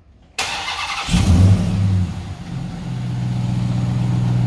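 Ram TRX's supercharged 6.2-litre V8 starting: a short crank that starts suddenly, catching about a second in with a brief rev flare, then settling into a steady idle.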